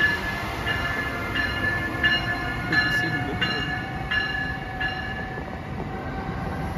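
Locomotive bell ringing steadily about once every 0.7 seconds over the rumble of a train, stopping about five seconds in.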